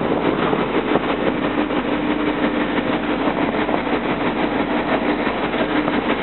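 Steady mechanical noise of heavy container-terminal machinery, with a steady hum that cuts off near the end.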